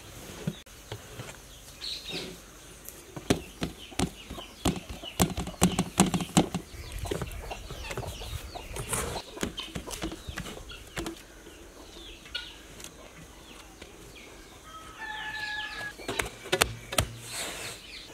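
Bare hands kneading and pressing a large mass of dough on a steel tray: irregular slaps and squelching presses, thickest in the first half. A bird calls briefly in the background about fifteen seconds in.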